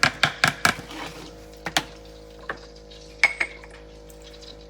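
A spoon clinking against a bowl: a quick run of clinks about five a second, then a few single clinks further apart, typical of stirring or tapping ingredients off a measuring spoon.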